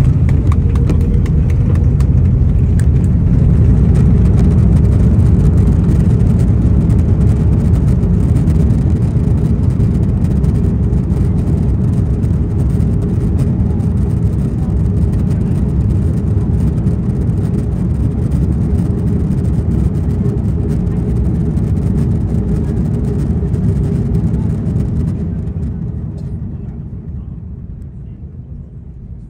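Cabin noise of a Lufthansa Airbus A330-300 just after landing: loud engine and runway rumble with a steady hum, dying down over the last few seconds as the aircraft slows.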